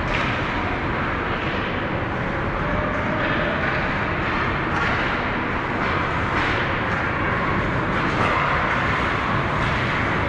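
Ice hockey game noise in a rink: a steady scraping hiss of skates on ice, broken by several sharp knocks of sticks and puck.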